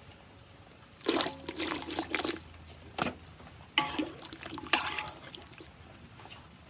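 Liquid being poured and splashing in four short bursts: a longer pour about a second in, then three brief ones.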